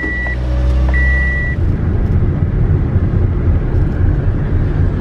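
Car engine idling just after starting, with two short high steady beeps from a dashboard warning chime in the first second and a half. Then the car is under way, with a low uneven rumble of engine and road noise.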